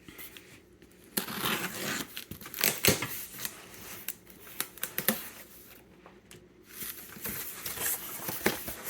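Packaging being torn and crinkled as a boxed card game is opened, with sharp clicks and taps in between. There is a short pause about six seconds in, then the crinkling starts again.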